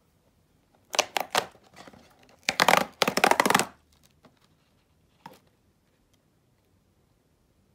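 Cardboard biscuit box being torn open along its perforated top: a few quick sharp rips about a second in, then a longer crackling tear, and a small tap near the end.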